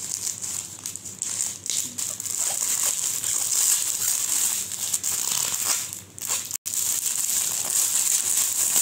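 Plastic courier mailer and clear plastic wrapper crinkling and rustling as they are cut open with scissors and handled, the garment pulled out of the packaging. The sound cuts out for an instant about two-thirds of the way through.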